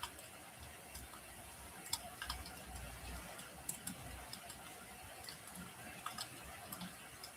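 Wood fire crackling in a fireplace: irregular sharp pops and snaps over a soft, steady hiss.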